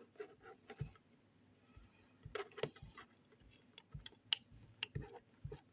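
Slime being handled and squished, giving irregular small clicks and pops, a dozen or so spread unevenly, a few with a soft low thud.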